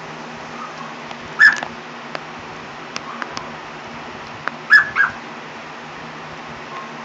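An African grey parrot mimicking a small dog's yappy bark: two bursts of short, sharp yelps about three seconds apart, the second a quick double.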